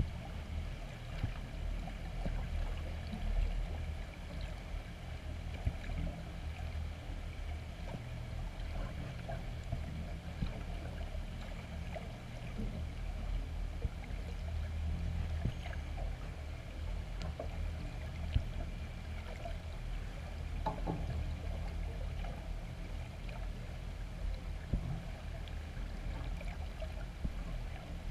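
Underwater ambience picked up by a GoPro inside its waterproof housing: a steady low rumble with a few faint scattered clicks.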